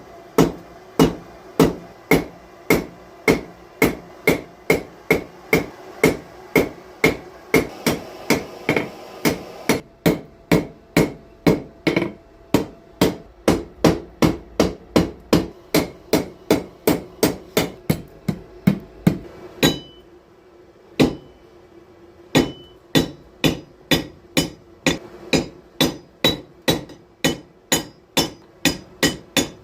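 Blacksmith's hammer striking metal on an anvil in a steady rhythm of about two blows a second, each blow ringing. The hammering breaks off briefly about two-thirds of the way through, with one lone strike in the gap, then picks up again.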